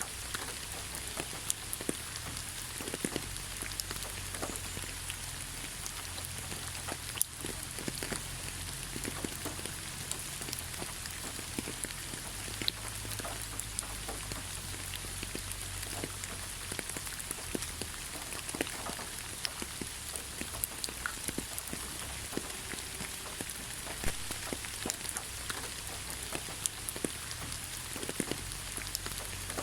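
Steady rain falling, an even hiss with many single drops pattering close by, over a low rumble.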